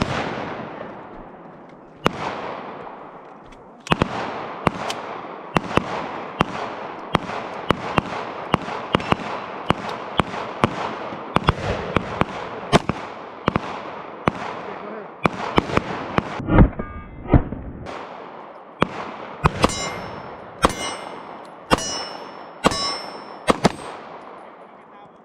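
A long string of pistol shots fired one at a time, about two a second at their quickest, each followed by a long echoing tail. After several of the later shots there is a ringing metallic tone.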